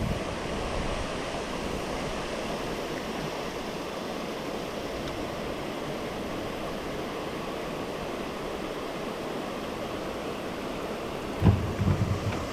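Steady rush of falling water from a waterfall, with a brief buffet of wind on the microphone near the end.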